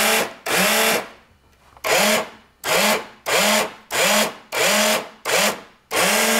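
Small electric motor driving the spindles of a model submarine's piston dive tanks, run in about ten short spurts of half a second or so. Each spurt starts with a quick rising whine and then runs steady, as the tanks are trimmed to add or take off weight.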